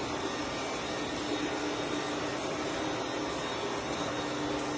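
Steady machine hum and hiss, unchanging throughout, with a faint low tone held under it.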